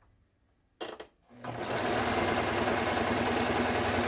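Singer 8280 household sewing machine being test-sewn after repair: a couple of clicks about a second in as the pattern dial is set, then the machine starts about a second and a half in and runs steadily, stitching through fabric.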